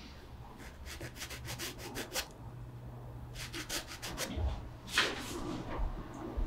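Paintbrush stroking water-soluble oil paint onto textured canvas: two quick runs of short scratchy strokes, about six a second, then one louder stroke about five seconds in.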